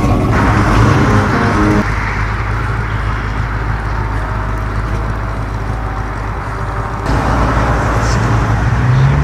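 Classic American car engines running as the cars drive off slowly. First a Pontiac GTO's engine rumbles with a deep, steady note. Abrupt changes about two and seven seconds in bring the engines of a 1956 Chevrolet sedan and then a 1970s Chevrolet truck, which revs slightly near the end.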